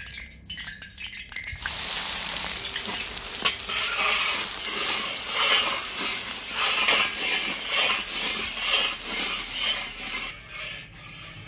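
Chopped onions dropped into hot oil in a large iron kadhai, setting off a loud sizzle about two seconds in. A metal spatula scrapes and stirs them in steady repeated strokes, and the sizzle softens near the end.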